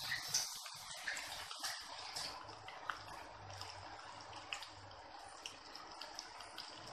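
Chicken pakoda pieces deep-frying slowly in hot oil in a pan: a steady sizzle with scattered crackles and pops, loudest in the first couple of seconds and then settling to a gentler fizz.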